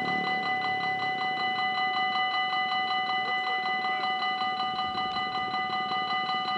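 Belgian level-crossing warning bell ringing in a rapid, even repetition of bright metallic strokes. It signals that a train is approaching and the barriers are about to come down.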